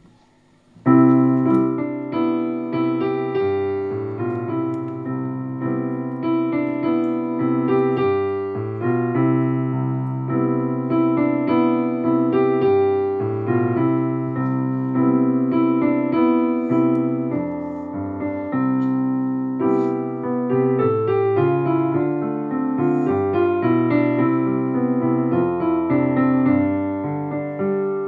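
Instrumental piano music begins about a second in and plays on without a break, chords under a melody.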